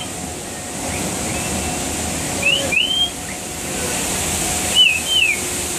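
Clear two-note whistles, rising then falling, like the calls of white-faced whistling ducks, heard twice, mid-way and near the end. A steady rushing hiss runs underneath.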